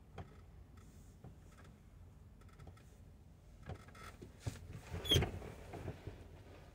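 Faint clicks and creaks inside a truck cab as someone shifts about. The loudest is a sharper click with a brief high squeak about five seconds in.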